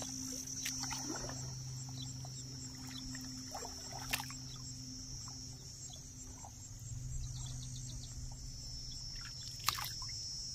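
A steady, high-pitched insect drone under a low, steady hum, with two sharp clicks, one about four seconds in and one near the end.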